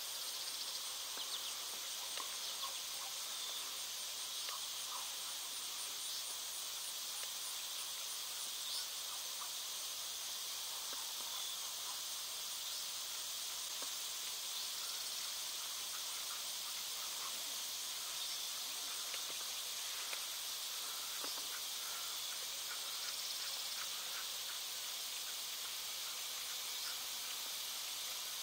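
Steady high-pitched chorus of field insects, with a fast pulsing trill running through the first several seconds and a few faint scattered chirps.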